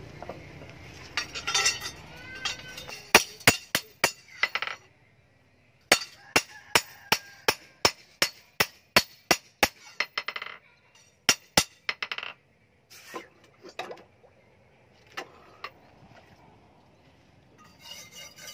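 Hand hammer striking a steel billhook blade on a steel post anvil: sharp, ringing metallic clinks. A first handful of blows comes a few seconds in, then a steady run of about a dozen blows at roughly three a second, then a few scattered single strikes.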